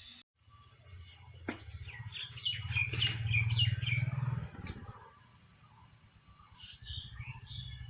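Small birds chirping, a quick run of short falling notes from about a second and a half in, with fainter chirps near the end, over a low rumble.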